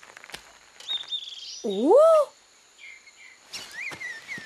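A Marsupilami cartoon creature's voice calls out once about two seconds in, its pitch dipping and then rising like a question. Around it is a jungle background of bird chirps and insect trills.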